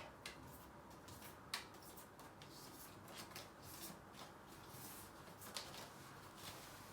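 Faint rustling and light ticks of animal cards being handled and dropped into a bag, with one sharper tick about a second and a half in.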